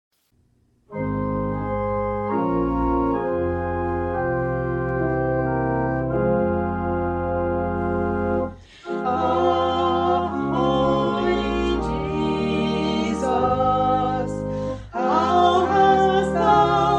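Organ playing sustained chords as an introduction. About halfway through, a singing voice comes in with the organ accompanying it.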